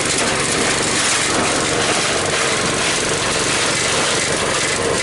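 Patchouli leaf chopping machine running steadily: a continuous, even mechanical whir of motor and cutter with no change in speed.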